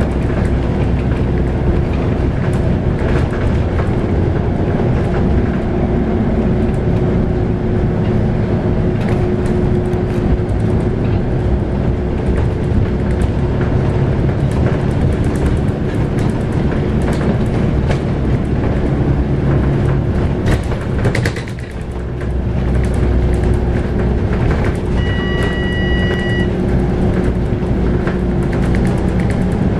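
Scania K280UB bus under way, heard from inside: its 9.3-litre five-cylinder DC9 diesel and driveline drone steadily over road rumble, with knocks and rattles. The drone dips briefly about two-thirds of the way in, and a short electronic beep sounds near the end.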